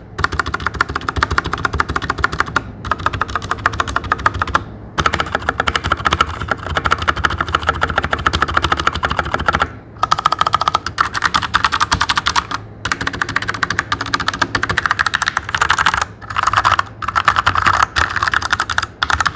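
Fast touch-typing on a Royal Kludge RK100 96% mechanical keyboard with lubed tactile switches: a dense, continuous run of key clacks, broken by a few brief pauses.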